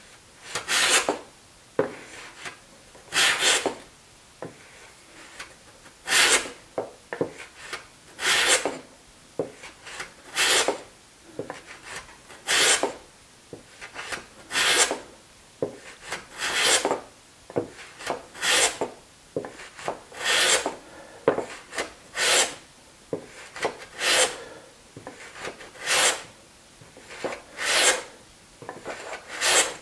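Wooden panel raising plane cutting the end grain of a pine board in about fifteen short, scraping push strokes, one roughly every two seconds. Its nicker is scoring the cross grain ahead of the blade.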